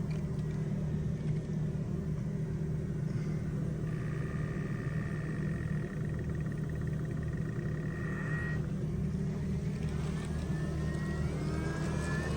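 BMW 535i's electric coolant pump running its automatic bleed cycle, a steady hum with a whine that comes in about four seconds in, stops near the middle, and rises again near the end as the pump changes speed to purge air from the cooling system.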